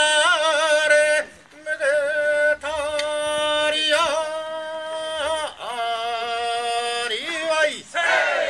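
Kiyari, a traditional Japanese work chant, sung by a single voice in long held high notes ornamented with quick wavering turns, with short pauses for breath. Near the end the voice glides down and the sound grows fuller.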